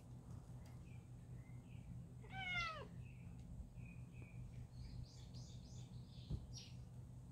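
A stray cat gives one short meow that falls in pitch, about two seconds in. A few short high chirps follow near the end.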